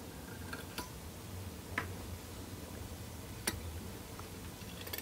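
A few faint, scattered clicks from fly-tying tools being handled at the vise, over a low steady hum.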